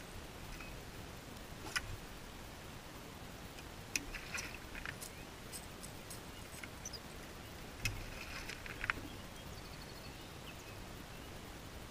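Quiet outdoor background with a few short, sharp clicks spaced a few seconds apart, and some faint brief high chirps.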